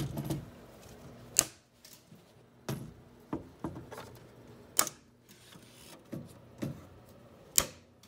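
Diagonal side cutters snipping plastic cable ties inside a metal fire alarm panel: three loud sharp snaps about three seconds apart, with lighter clicks of the tool between them.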